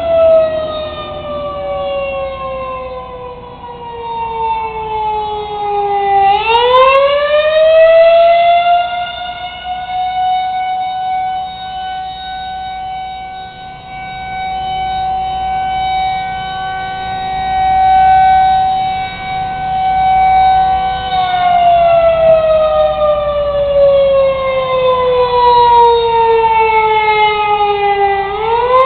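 Chino prison's outdoor warning siren sounding during its monthly test, a loud slow wail. The pitch falls for about six seconds, rises back and holds steady for about twelve seconds, then falls again and begins to climb near the end.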